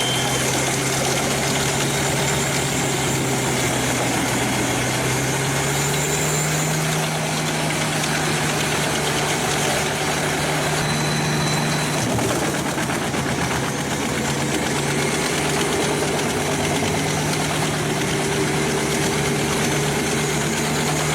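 Pezzolato PTH 1400/1000 drum chipper running under load, its engine a steady hum over the noise of the drum. The engine pitch steps up about six seconds in and dips briefly around twelve seconds before recovering.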